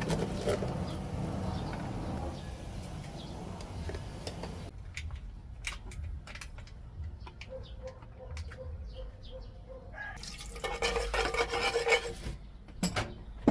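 Kitchen utensils clinking and scraping against cookware while food is stirred, with scattered sharp clicks and a denser burst of stirring about eleven seconds in.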